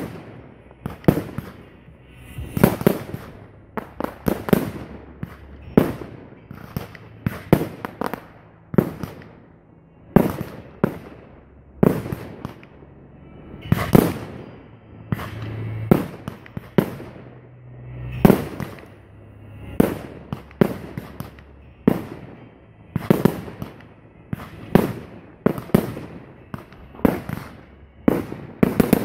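Aerial fireworks bursting in quick succession, with sharp bangs about one to two a second, each trailing off briefly.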